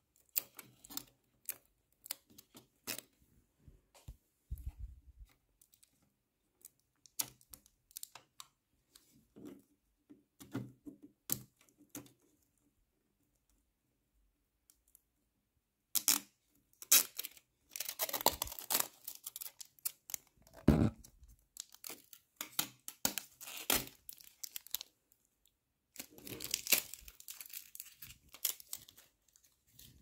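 Scattered light clicks and taps, then, after a short pause, three stretches of plastic crinkling and tearing with a single thump between the first two.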